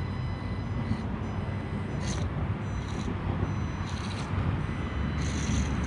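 Micro RC crawler's small electric motor and gears whirring in short high-pitched bursts about once a second as the throttle is feathered, over a steady low rumble.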